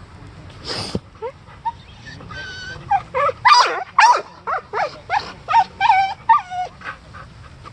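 A dog yipping and whining in a quick series of short, high-pitched calls, about a dozen over five seconds, the loudest near the middle.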